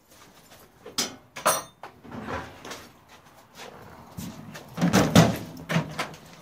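Clicks, knocks and clatter of hands handling a gutted microwave oven's cabinet and door, with two sharp clicks about a second in and the loudest knocks about five seconds in.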